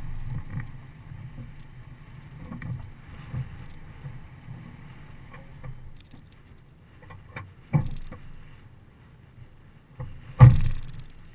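Toyota Tacoma pickup coming to a stop, its low engine rumble fading over the first several seconds. Then scattered clicks and two sharp knocks against the truck, the second, near the end, the loudest.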